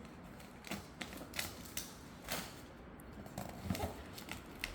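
Packaging being pried and torn open by hand: irregular sharp clicks and crackles, a few a second.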